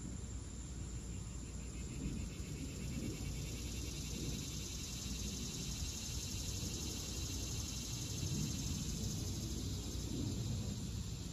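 Cicadas buzzing in chorus, a high shimmering drone that grows louder in the middle, over a steady low rumble.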